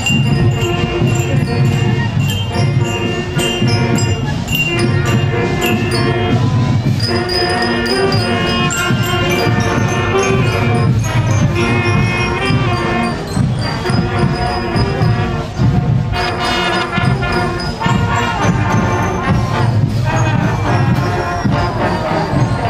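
Marching drum corps playing a tune on saxophones, trumpets and trombones over drums while on the march.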